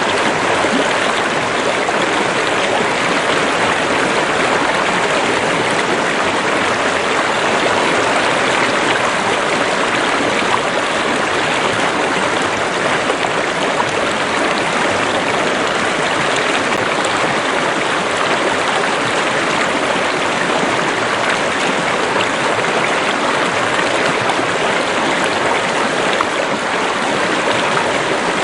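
A stream or small river running over rocks: a steady, even rush of water with no pauses.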